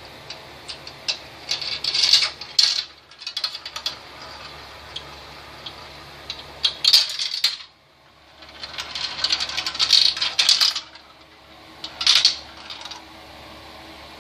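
Marbles rolling and clattering down a marble run track: scattered clicks and several bursts of rapid rattling as they run through the pieces.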